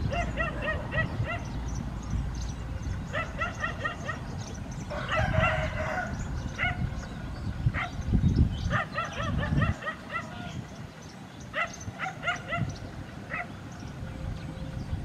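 Dogs yipping and barking in quick runs of four or five short yips, repeated several times, with one louder, rougher bark about five seconds in, over a low rumble.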